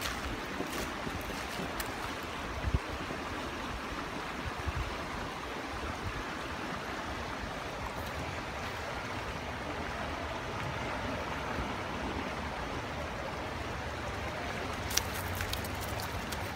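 Steady rushing of a flowing stream, with a couple of brief knocks, the sharpest near the end.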